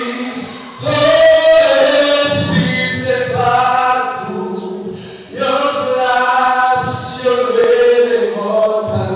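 A man singing a gospel song into a microphone, amplified through the PA, in long held phrases with short breaks about a second in and about five seconds in.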